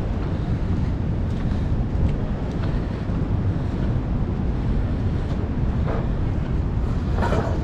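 Wind buffeting the microphone over the steady low rush of big surf, with a few faint brief sounds near the end.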